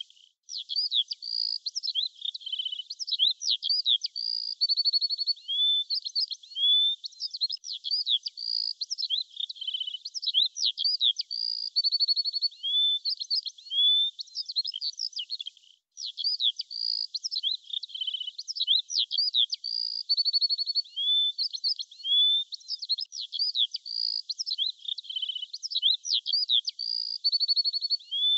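Birdsong: a busy run of whistled chirps, gliding notes and short rapid trills, broken by a brief gap about halfway through, after which the same sequence starts again.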